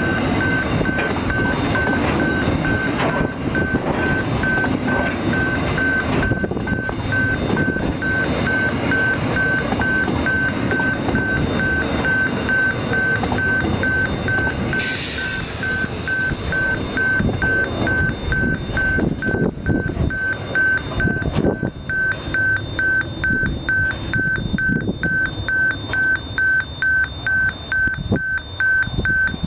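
Level crossing's electronic warning bell ringing in rapid, even pulses while a long freight train of tank wagons rolls past, its wheels rumbling and clattering over the rail joints. There is a short hiss about halfway through.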